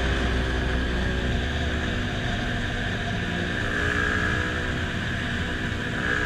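Yamaha MT-15's single-cylinder engine running at fairly steady revs while the motorcycle is ridden.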